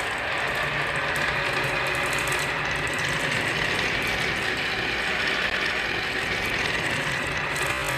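Continuous mechanical clattering and rattling, steady throughout.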